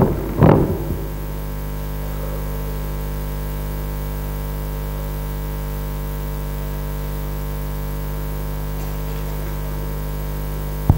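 Steady electrical hum and buzz from a live PA sound system with an open microphone. A brief loud noise comes about half a second in, and a short click just before the end.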